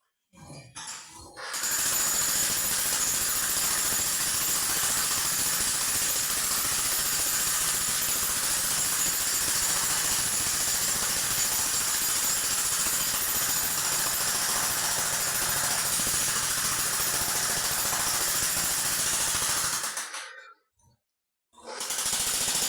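Hercules 15-amp electric jackhammer running at full hammer. It starts about two seconds in, runs steadily, cuts off near the end, then starts again briefly.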